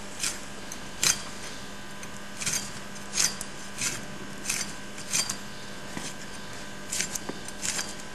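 A cow's hoof being trimmed by hand: about a dozen short, irregular scraping cuts of a trimming tool into the hoof horn.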